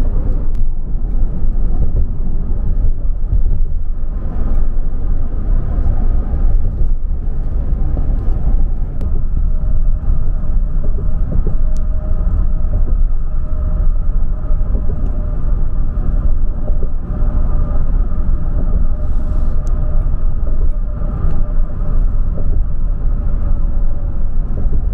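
Steady low rumble of a moving car, with a faint steady whine above it.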